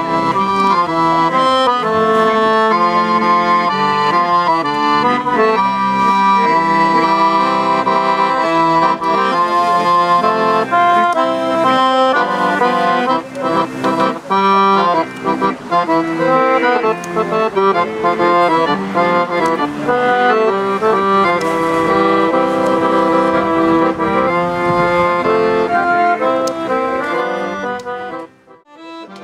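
Accordion playing a dance tune, with melody and chords going steadily. It breaks off briefly near the end.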